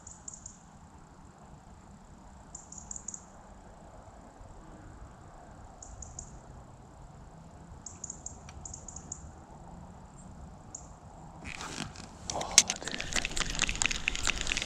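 Quiet outdoor background with faint, short high chirps every few seconds. From about three-quarters in, a loud, dense crackling rustle close to the microphone takes over.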